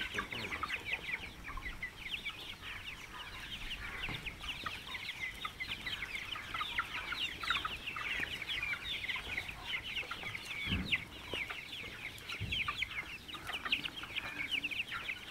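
A flock of young Swarnadhara chickens, about six weeks old, peeping and cheeping without pause: a dense chorus of short, high, falling calls from many birds at once.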